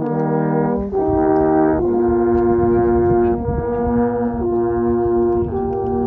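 Three alphorns playing together in a slow tune of long held notes, the pitch changing in steps about once a second.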